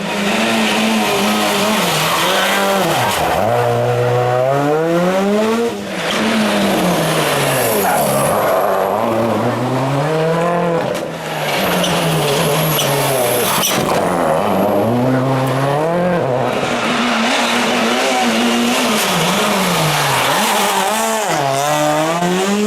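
Rally cars driven hard on a stage, one after another: engines revving up high, then dropping sharply at each gear change and as they brake for corners.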